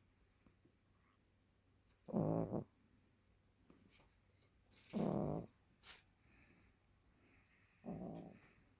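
Maltese dog snoring in its sleep: three short snores about three seconds apart.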